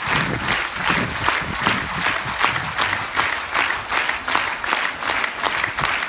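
Crowd in a large grandstand applauding steadily, a dense patter of many hands clapping.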